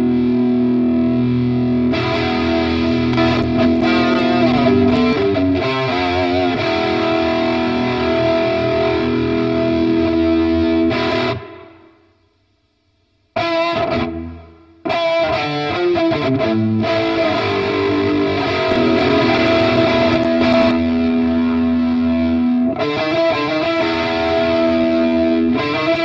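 Electric guitar played through a Vox combo amplifier: held chords and moving notes ring out. The playing stops for about two seconds about halfway through, then starts again.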